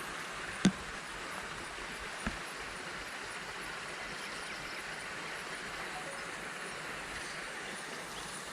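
Steady outdoor background hiss, with a sharp knock under a second in and a fainter knock about two seconds in.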